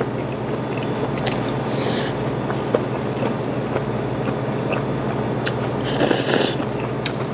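A man slurping noodles and chewing, recorded with the microphone held at his mouth. Two long slurps, about two seconds in and about six seconds in, with small wet chewing clicks between them, over a steady low hum.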